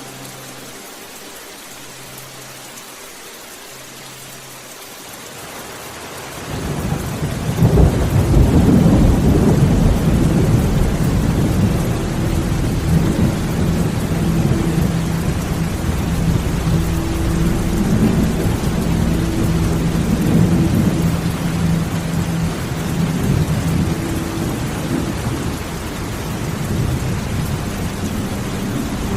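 Rain falling steadily. About six seconds in, a long low rumble of thunder swells up, is loudest a couple of seconds later, and keeps rolling under the rain.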